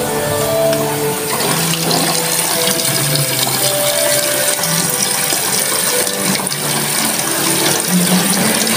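Faucet running in a steady stream into a stainless-steel sink, splashing onto water pooled over the drain as the basin fills for an overflow leak test.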